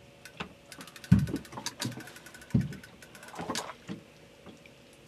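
Irregular knocks and thumps from a boat rod and reel being handled, with a run of rapid ticking from the reel as line is wound in on a hooked fish.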